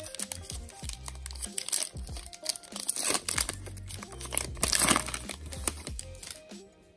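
A Topps Heritage baseball card pack wrapper being torn open by hand, crinkling and crackling, loudest about three seconds and again about five seconds in.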